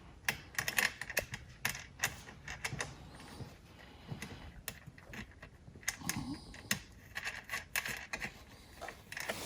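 Irregular light clicks and taps of a nut being fitted by hand onto a bolt through a plastic ATV footwell panel, with small metal parts rattling.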